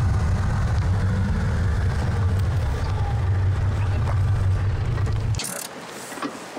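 Car engine idling with a steady low rumble that cuts off about five seconds in, followed by a short burst of noise and a few faint knocks.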